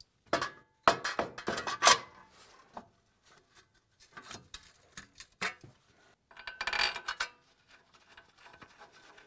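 Metal clinks and knocks as a new front wheel hub assembly is slid over the splined axle shaft and seated into the steering knuckle of a Chevy Silverado. A quick cluster of sharp clinks comes in the first couple of seconds, then scattered light taps, then another burst of clinking about seven seconds in.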